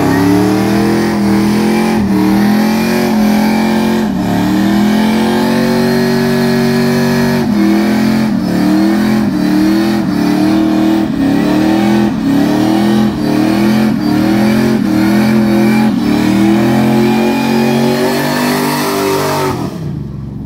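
Car engine revved hard and held at high revs during a burnout. It climbs at the start, holds steady for a moment, then pulses in quick repeated dips from about seven seconds in, and drops off suddenly near the end.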